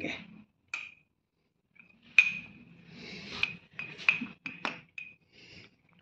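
A metal spoon stirring dry ground herbal powder in a glass jar: scraping with several clinks of the spoon against the glass, the loudest about two seconds in.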